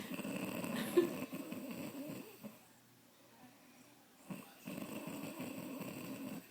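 A woman snoring loudly with a deep, rattling snore: two long snores of about two seconds each, with a pause between them. There is a short sharp spike about a second into the first snore.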